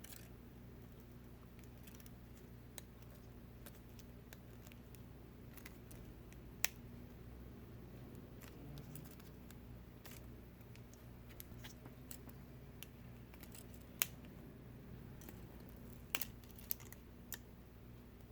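Scattered small clicks and taps of repair tools handling an iPad Pro's display flex cables, a few sharper clicks standing out, over a faint steady hum.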